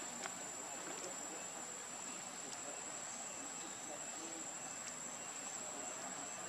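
Steady high-pitched insect drone, with a few faint clicks over a soft outdoor background.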